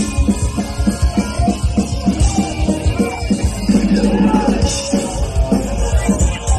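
Live punk rock band playing loud and fast through a stage PA: a quick, steady drumbeat under electric guitars.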